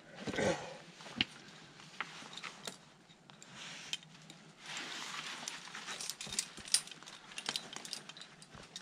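Metal climbing gear clinking and scraping against rock in scattered sharp clicks, with a short vocal sound at the very start and a stretch of rustling noise about halfway through.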